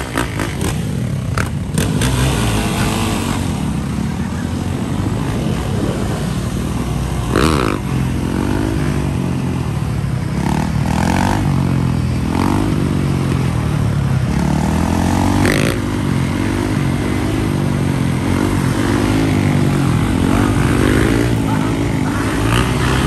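Dirt bike engines running and revving as riders hold wheelies, their pitch rising and falling again and again with the throttle.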